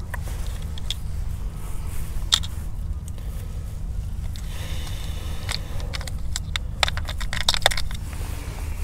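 Small clicks and rattles of fishing tackle being handled as a line is tied to a small swivel and lures are picked through in a plastic tackle box. One click comes about two seconds in and a quick cluster of clicks near the end, over a steady low rumble.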